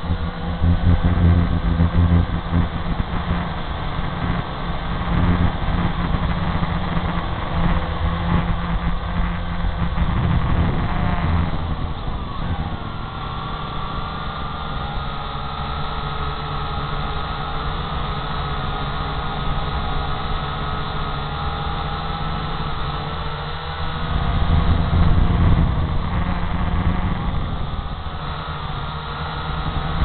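Syma X8 quadcopter's motors and propellers whining steadily in flight, heard through its own onboard camera, with low wind rumble that swells and fades. The motor pitch shifts about twelve seconds in.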